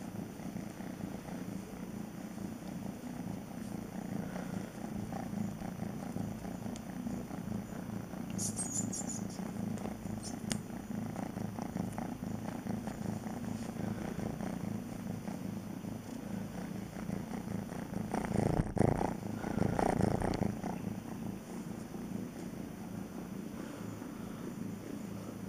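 Young tabby kitten purring steadily, a continuous low pulsing rumble, while wrapped in a terry towel. About three-quarters of the way through, a louder burst of towel rubbing comes over the purr.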